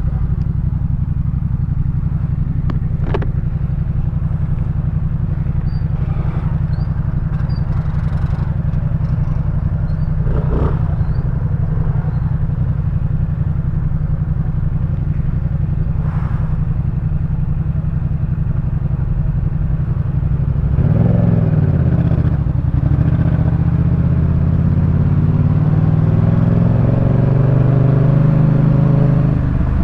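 Yamaha MT-07's parallel-twin engine through a Jeskap K4 full aftermarket exhaust, running steadily at low revs, then revving up and down as the bike accelerates through the gears from about 20 seconds in.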